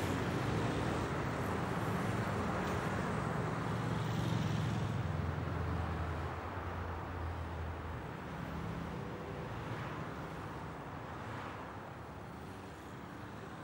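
A car engine running close by, its low hum fading from about six seconds in as the car moves off, over steady city street traffic noise.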